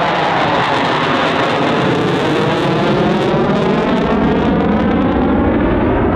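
McDonnell Douglas F/A-18 Hornet's twin General Electric F404 turbofans in full afterburner, a loud, steady jet noise as the fighter takes off and climbs away. A sweeping, phasing effect glides down and then back up through the noise.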